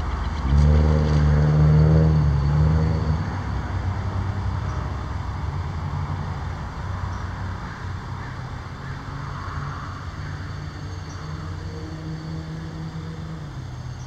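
A motor vehicle's engine passing by as part of road traffic. It is loudest about a second or two in, then fades away slowly.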